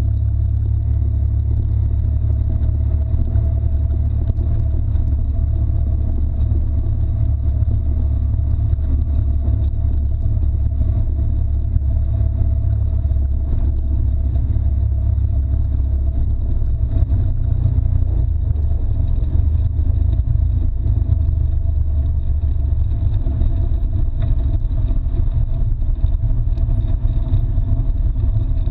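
Can-Am Maverick X3 side-by-side with its turbocharged three-cylinder engine driving along a rough dirt trail: a steady, heavy low rumble of engine and ground noise, heard from a hood-mounted camera.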